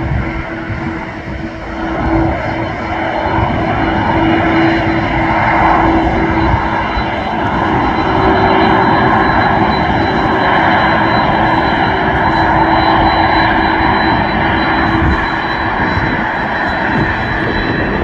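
Twin-engine jet airliner's turbofans running at taxi power: a steady rushing hum with a thin high whine. It grows louder about two seconds in as the aircraft swings round toward the microphone.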